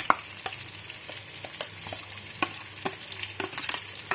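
Stuffed capsicums frying in oil with a steady sizzle, while a metal spoon scrapes masala paste out of a steel bowl into the pan with repeated short clicks and scrapes of metal on metal.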